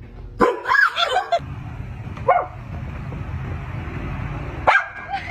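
A dog barking and vocalizing in short calls: a cluster of several about half a second in, one a little after two seconds, and another near the end, over a steady background hiss.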